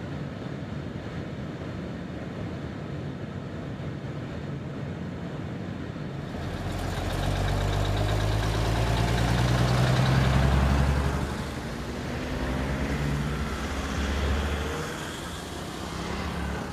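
A motor vehicle's engine running, with a low steady rumble that grows louder about six seconds in, peaks in the middle and eases off toward the end.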